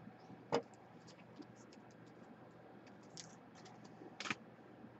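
Faint, scattered clicks and taps of trading cards and their packaging being handled on a table, with a sharper knock about half a second in and a short clatter of clicks a little after four seconds in.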